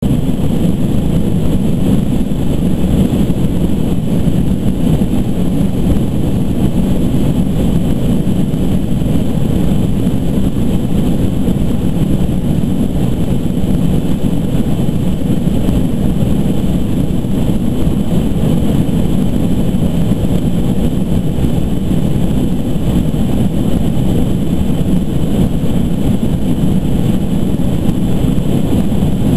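Boeing 737-200 Advanced's Pratt & Whitney JT8D turbofan engines running steadily in flight, heard inside the cabin as a low, even rumble with a thin high whine above it.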